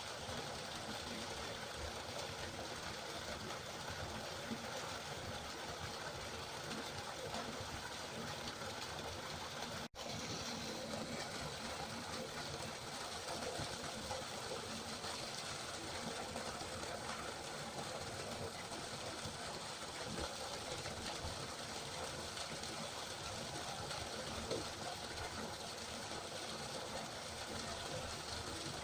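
A river flowing steadily, an even rush of water, with a momentary dropout about ten seconds in.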